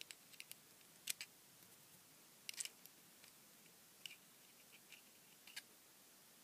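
Faint, scattered metallic clicks and light scrapes of needle-nose pliers working inside the opened metal housing of a small geared stepper motor, prying at its internal parts. About a dozen short clicks, the loudest just after a second in.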